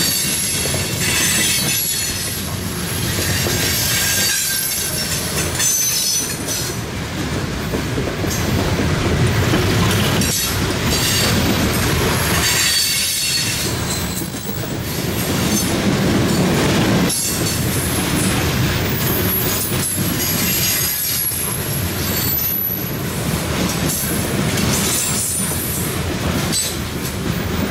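Loaded coal train rolling slowly past: the steady rumble of heavy freight cars on the rails, with high wheel squeal coming and going.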